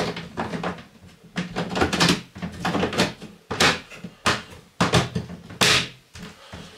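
Plastic lid of a composting toilet's mulch compartment being put on and pressed into place: a string of about eight sharp hard-plastic clacks and knocks.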